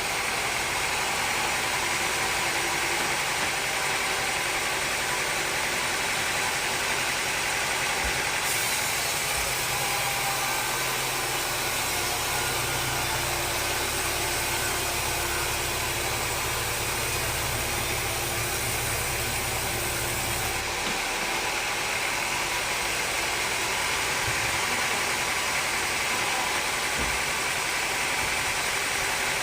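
Sawmill machinery running steadily with an engine-like hum; a deeper hum comes in about ten seconds in and drops away about twenty seconds in.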